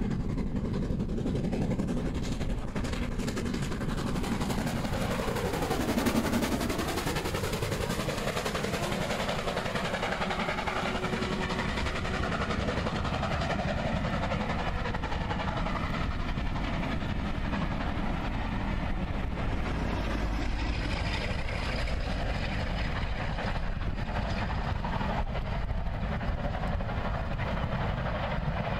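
LMS Stanier Black 5 steam locomotive passing with a train of coaches. It is loudest about six seconds in as the engine goes by; then the coaches roll past and the train draws away.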